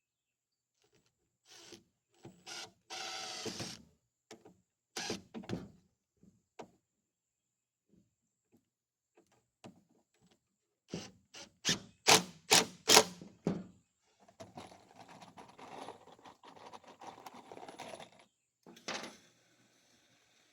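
Rough-sawn cypress boards being handled and knocked together while a feed bunk is assembled: scattered wooden thunks and a scrape, then a quick run of five or six sharp knocks about halfway, and a few seconds of steady running noise near the end.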